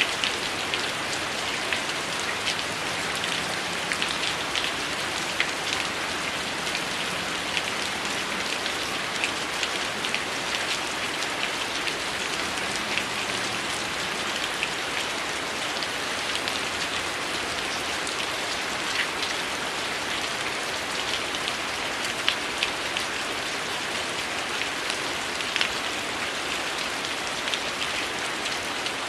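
Heavy rain falling steadily, a dense even hiss, mixed with a wood fire crackling: frequent small, sharp pops scattered irregularly throughout.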